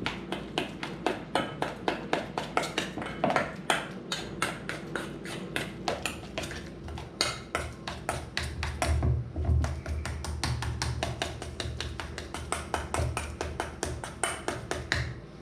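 A utensil clicking and scraping against a bowl in quick, even strokes, about three to four a second, while mixing softened butter with spices and pepper paste. A low hum comes in about six seconds in.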